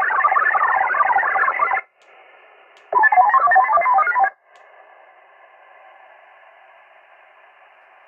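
VARA HF digital-mode signal from an Icom shortwave transceiver's speaker during a Winlink email transfer: a dense warble of many tones. One data burst stops about two seconds in and a shorter one runs from about three to four seconds. After that only a faint steady receiver hiss remains.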